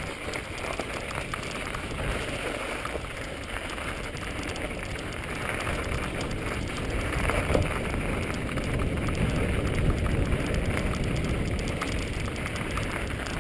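Mountain bike riding over a snow- and ice-covered rocky singletrack, heard from a camera on the moving bike or rider: a steady crunching crackle of tyres on snow with many small rattles and a low rumble.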